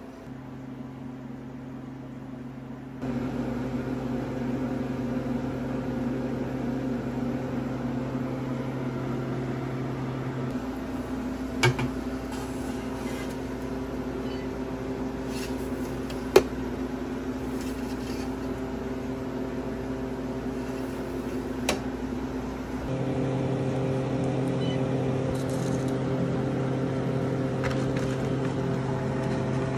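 Harvest Right freeze dryer humming steadily, its level shifting a couple of times. Three sharp metallic clicks come in the middle, as aluminium trays are handled.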